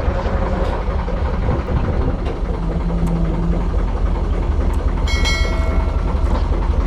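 Narrowboat diesel engine running steadily at idle, a deep rumble. A brief high-pitched squeal cuts in about five seconds in.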